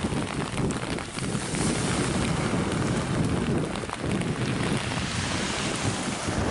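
Wind buffeting the microphone in uneven gusts, over the steady wash of surf.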